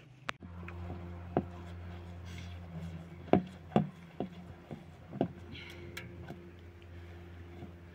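Clothes being hand-washed in a metal basin: wet fabric sloshing and wrung, with a few sharp knocks against the basin, over a steady low hum.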